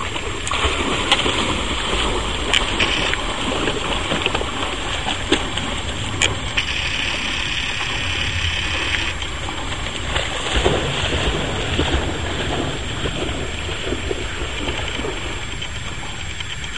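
Water splashing and sloshing as a Fila Brasileiro dog swims, over a steady low rumble.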